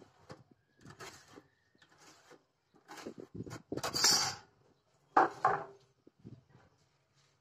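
Hands working a steel ruler and a thin iron sheet on a wooden workbench: light scratches of a pen marking a line along the ruler, then a longer metal scrape and rattle about four seconds in as the ruler and sheet are shifted, and two sharp knocks just after five seconds as they are set down on the wood.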